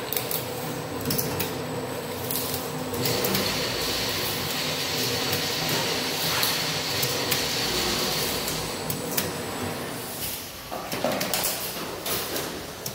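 Automatic bottling line running: conveyors and a labelling machine whirring, with bottles clicking and knocking against each other and the guide rails. A steady hiss joins in about three seconds in and stops a few seconds before the end.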